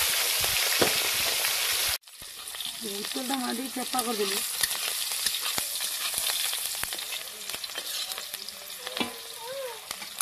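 Hot oil sizzling loudly in a black iron kadhai as fish pieces fry. About two seconds in it cuts to a quieter sizzle, with a metal spatula clicking and scraping against the wok as the contents are stirred.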